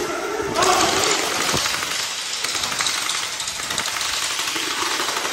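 Electric gel ball blasters firing in rapid, continuous bursts, a fast rattle of shots that starts about half a second in.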